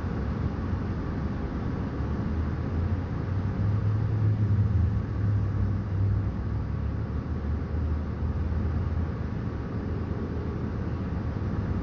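Cummins L9N natural-gas engine of a 2019 New Flyer XN40 bus idling, heard from inside the passenger cabin: a steady low rumble that swells a little about four seconds in.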